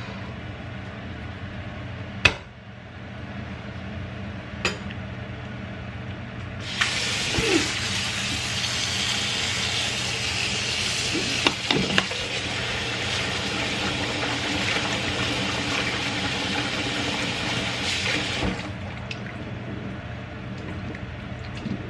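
Water from a pull-out kitchen faucet's spray head runs into a stainless-steel sink for about twelve seconds, starting about a third of the way in and shutting off near the end. Before the water there is a sharp knock, then a lighter one, over a low steady hum.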